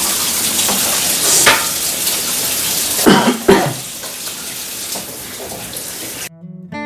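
Kitchen sounds: a steady hiss with a few clatters of pans and utensils, cutting off suddenly about six seconds in. Acoustic guitar music starts right after.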